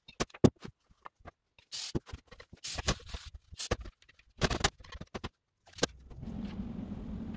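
Blue paper shop towels rubbing and wiping over a painted steel gas tank, with irregular knocks and rustles as the tank and funnel are handled on the workbench. About six seconds in, a steady low hum sets in.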